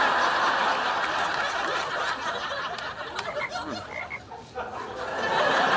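Frog croaking.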